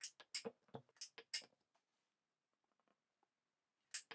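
Battery spot welder firing as its hand-held copper-lead tips weld metal tabs onto new lithium-ion cells: a quick run of sharp snaps, a pause of about two and a half seconds, then two more snaps near the end.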